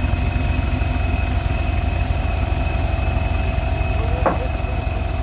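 Off-road Mitsubishi Triton pickup's engine idling steadily, with a steady high-pitched tone over it. A brief sharp sound cuts in about four seconds in.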